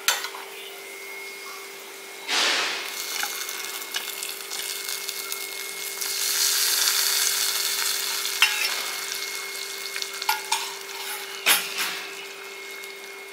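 Hot ghee with fried cashews poured from a small steel kadai onto coconut-milk payasam, sizzling loudly for a couple of seconds as it hits the surface. A few sharp metal clinks of the pan and spoon.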